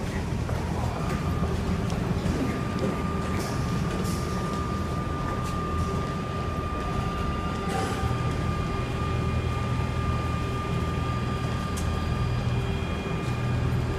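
Double-deck RER commuter train standing at the platform, its onboard equipment giving a steady low hum with a constant high whine that holds from about a second in until near the end. A few faint clicks sound over it.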